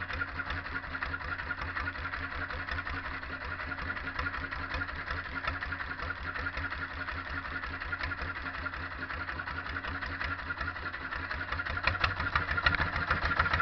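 Small fishing boat's inboard engine running steadily with an even, rapid beat.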